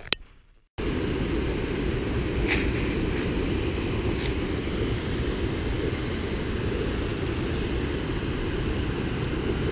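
Small waterfall rushing over rocks: a steady, even, low-pitched rush of water that starts suddenly about a second in.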